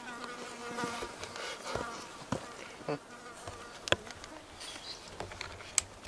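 A flying insect buzzing close by: a steady hum for the first two or three seconds that then fades, with a few scattered sharp clicks and rustles.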